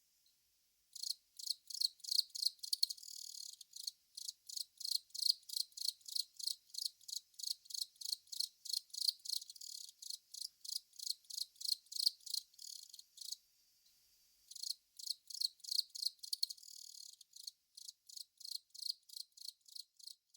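Long-mouthed cricket (Velarifictous aspersus) singing: a long run of short, high-pitched chirps at about three a second. It starts about a second in and pauses for about a second before carrying on.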